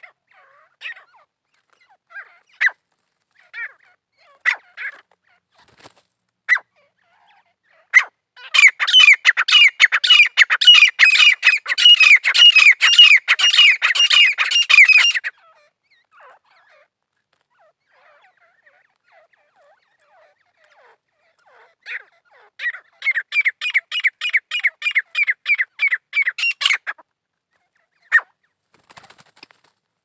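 Gray francolins calling: two loud bouts of rapid, evenly repeated shrill notes at about three or four a second, the first lasting several seconds and the second shorter, with scattered single call notes between.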